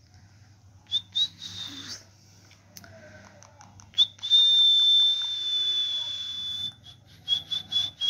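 Indian ringneck parakeet whistling: a couple of short high whistles about a second in, then one long, steady high whistle held for over two seconds, and a quick run of short whistles near the end.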